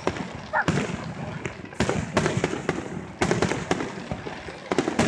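Fireworks going off: a run of sharp bangs at irregular intervals, several a second at times, with crackling between them.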